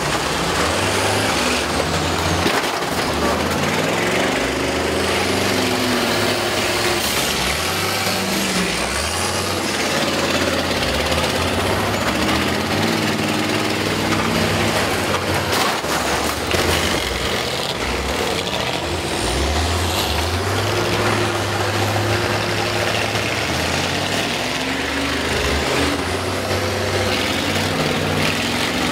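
Several old school bus engines revving hard and dropping back again and again as the buses drive and ram one another in a demolition derby, with a few sharp metal crashes of impact partway through.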